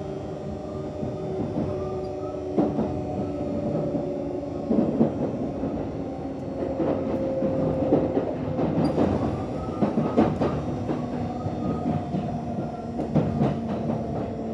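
Kintetsu 1026 series electric train's VVVF inverter whine, several steady tones that shift in steps as the train moves, over running noise. Wheels clack and knock irregularly over rail joints and points from a few seconds in.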